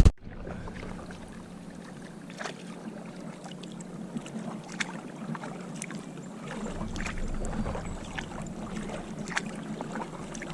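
Kayak being paddled on a river: faint water swishing with a few soft paddle splashes and knocks, a couple of seconds apart.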